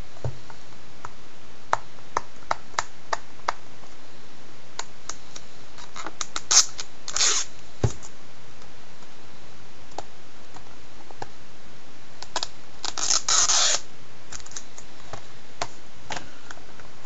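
Hands handling a plastic Blu-ray case and its slipcover: scattered light clicks and taps, with two short scraping rustles, one about six seconds in and one about thirteen seconds in.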